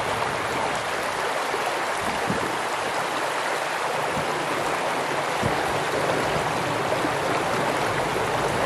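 River water flowing steadily.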